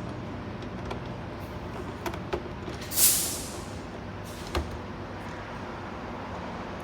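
Small clicks and handling noises from hand-driving Torx screws into a plastic instrument cluster housing, over a steady low hum. A short hissing burst about three seconds in is the loudest sound.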